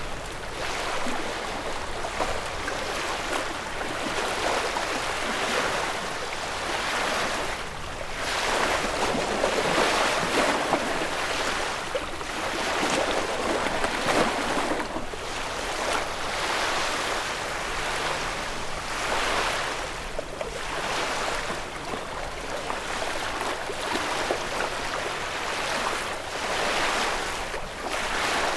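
Ocean waves breaking and washing on a shore, a continuous rush of surf that swells and ebbs every few seconds, with a fuller surge partway through.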